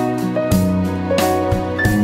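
Background music: a keyboard melody over a held bass line, with notes changing about every half second on a regular beat.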